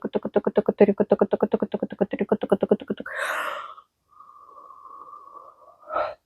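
A woman's voice rapidly chanting a repeated nonsense syllable like "tuku-tuku-tuku" on one pitch, about eight syllables a second. It stops about three seconds in and is followed by a breathy exhale, then a faint steady high tone.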